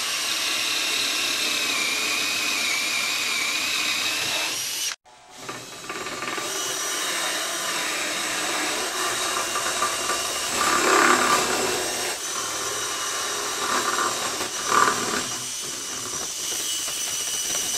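Cordless drill boring through a seasoned pine 2x4 with a large wood bit, cutting slotted holes. It stops abruptly about five seconds in, then runs again with its load rising and falling as the bit is worked through the wood.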